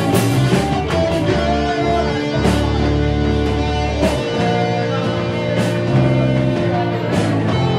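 Rock band playing live, led by an electric guitar playing sustained chords.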